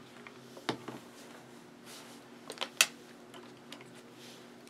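A few light clicks and taps of painting supplies being handled while paint is picked up, the loudest a sharp click near three seconds in, over a steady low electrical hum.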